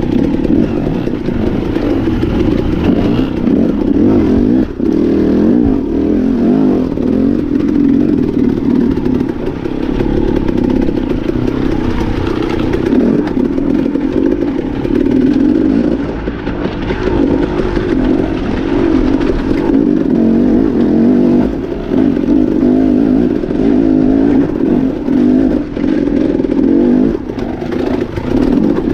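Off-road dirt bike engine running loud, its revs rising and falling with constant throttle changes and brief drops off the gas, with some clatter from the bike over rough rock.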